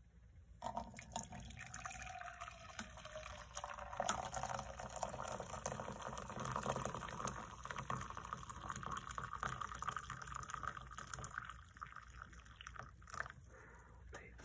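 Hot coffee poured in a steady stream from an insulated coffee press into an enamel camp mug, splashing as the mug fills. The pour eases off near the end, followed by a single short knock.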